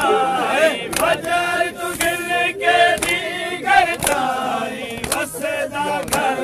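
Men's voices chanting a noha, a Shia lament, together, with sharp slaps about once a second keeping time.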